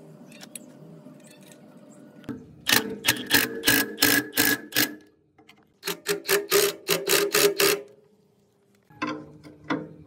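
Rapid ratchet-like mechanical clicking, about six sharp clicks a second, in two runs of about two seconds each with a short pause between, then two single clicks near the end.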